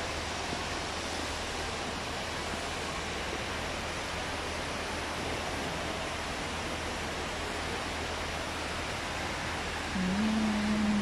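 Indoor fountain's water jet and stepped cascades splashing, a steady rushing hiss. About ten seconds in, a short low steady tone like a hum sounds over it for about a second.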